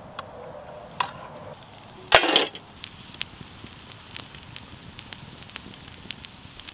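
Wood campfire crackling, with scattered sharp pops and one louder, longer burst of noise about two seconds in.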